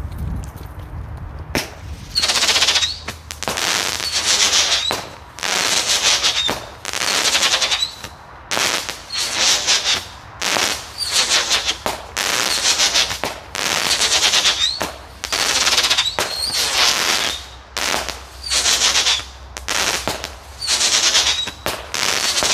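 Winda 'Mercurial Bee' firework firing a long series of shots about once a second, starting about a second and a half in. Each shot is a loud hissing burst lasting most of a second as its whirling spark effects spin out.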